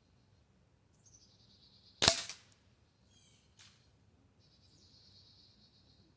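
Winchester pump-up air rifle firing once: a single sharp crack about two seconds in, followed about a second and a half later by a fainter click.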